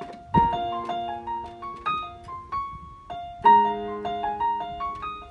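Casio electronic keyboard being played in a piano-like voice: a held chord, struck about half a second in and again about three and a half seconds in, under a line of single melody notes.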